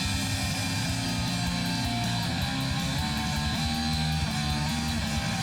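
Background music: a rock track led by electric guitar, playing at a steady level.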